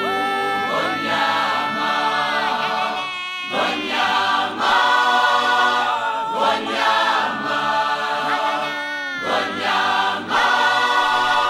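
Background music: a choir singing, voices holding long notes that change every second or so.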